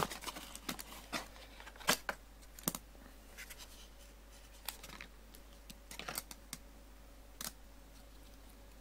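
Hands handling a cardboard box and plastic case layers: irregular clicks, taps and scrapes, thicker in the first three seconds and again around six to seven seconds in.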